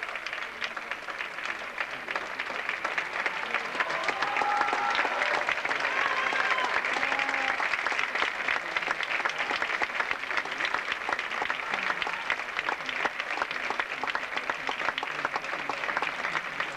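Audience applauding during a ballet curtain call: dense, steady clapping that swells about three seconds in, with a few voices calling out in the middle.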